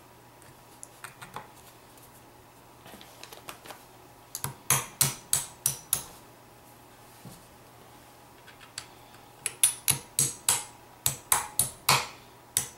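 A hammer tapping the trigger-group retaining pins back into a Remington 870 pump shotgun's receiver, metal on metal. There is a run of about six light taps a little over four seconds in, then a longer run of about ten in the second half, with a few faint handling clicks before them.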